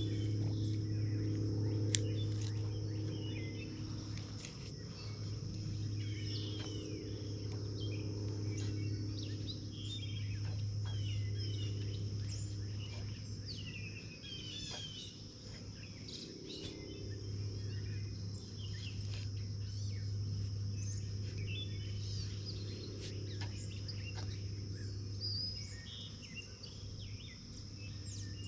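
Summer pond ambience: a steady high insect drone with many short bird chirps over it, a steady low hum underneath, and a few faint clicks.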